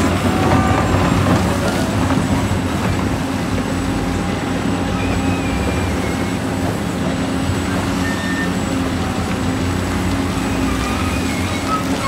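Heavy construction machinery's diesel engine running steadily, with a few faint high-pitched squeaks over the engine hum.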